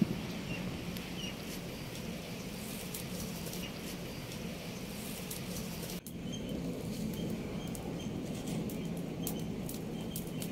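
Steady background hiss with small crackles, and faint short bird-like chirps repeating through the second half. A single sharp knock comes right at the start, as the clay cooking pot and its lid are handled.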